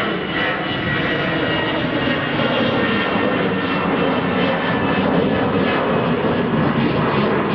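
Airbus A320 twin turbofan jet engines at takeoff power as the airliner climbs out close overhead: a loud, steady roar with a whine of many high tones, growing slightly louder.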